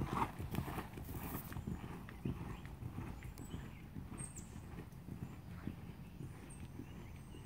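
Hoofbeats of a Thoroughbred horse under saddle on sand arena footing: a steady run of dull thuds that grows fainter as the horse moves away.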